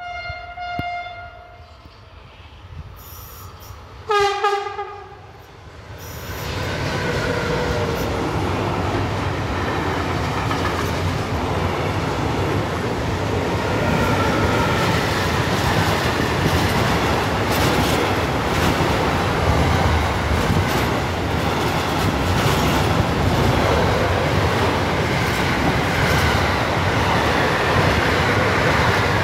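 Freight train horn sounding twice: a short toot at the start, then a louder blast about four seconds in. A long freight train of tank and container wagons then rolls past close by, with steady wheel-on-rail noise and some clickety-clack. Near the end a second train is passing on the other track.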